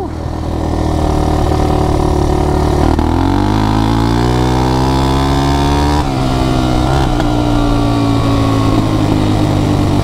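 Suzuki LTZ400 ATV's liquid-cooled 400 cc single-cylinder four-stroke engine running under way. It holds steady, then revs up for about three seconds, the revs drop sharply, and it pulls steadily again.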